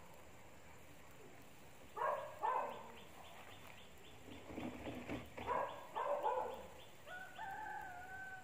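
Domestic animals calling in the background: short pitched calls in pairs, twice, then one long drawn-out call near the end that steps up slightly and then falls gently, like a rooster crowing.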